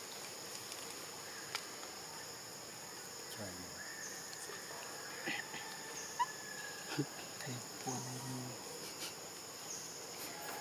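Steady high-pitched drone of insects in the forest, with faint brief low voices a few times in the middle.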